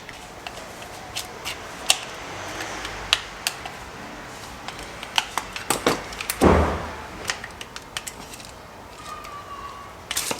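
Light metallic clicks and rattles from a car window lift mechanism and its steel cable being handled, scattered and irregular, with one longer scraping rustle about six and a half seconds in.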